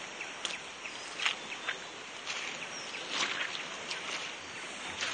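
Night-time forest ambience: a steady hiss with short, irregular ticks and scuffs scattered through it.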